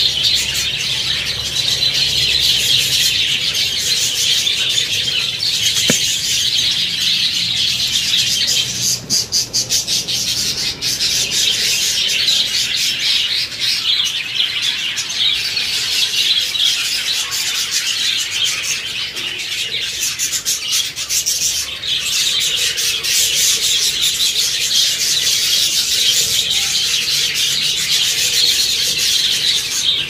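A large colony of budgerigars chattering and chirping together: a dense, continuous mass of short warbling calls, easing off briefly about nine seconds in.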